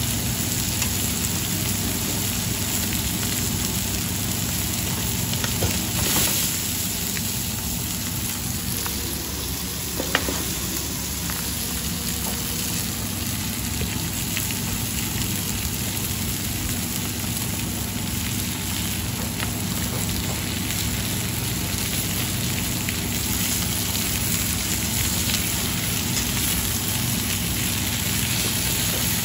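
Chicken thighs in an oily leek-and-salt sauce sizzling steadily in black steel frying pans over gas burners, with a couple of sharp clicks of metal tongs.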